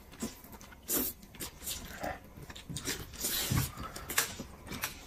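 Close-up eating sounds of someone biting and chewing roast chicken on the bone, with scattered wet mouth smacks and small clicks.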